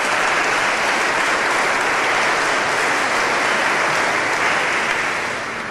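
Audience applauding: steady, sustained clapping that begins to fade out near the end.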